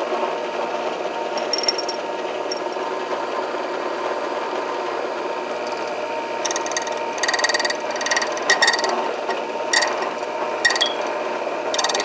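A 045 HD key-cutting machine running steadily as the key blank is drawn past the spinning cutting wheel on a clean-up pass. From about halfway, a series of short grinding, scraping bursts come as the cutter bites into the key's metal.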